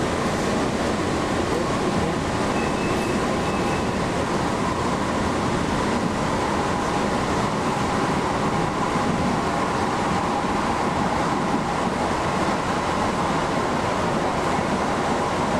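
Light rail car running along its track, heard from inside the passenger cabin: a steady rumble of wheels and running gear with a steady whine that grows a little stronger partway through.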